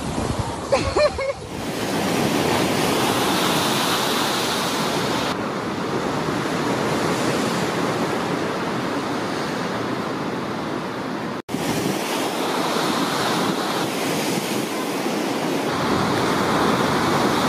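Heavy storm surf breaking against a sea wall and rocks, a continuous rushing of waves with wind on the microphone. The sound changes abruptly about five seconds in and again near the end, and drops out for an instant about two-thirds through, where shots are spliced together.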